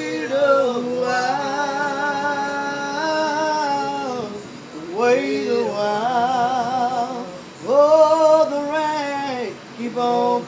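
Women singing a slow spiritual unaccompanied, in long drawn-out phrases with vibrato and short breaths between them.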